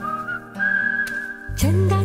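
Background music: a whistled tune over held chords, with a bass line and a drum beat coming in about one and a half seconds in.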